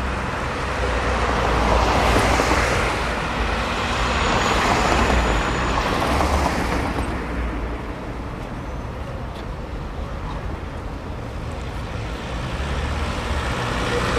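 Street traffic: cars passing close by with a rush of tyre and engine noise over a steady low engine hum. It is loudest in the first half, eases off, then builds again near the end as a van draws close.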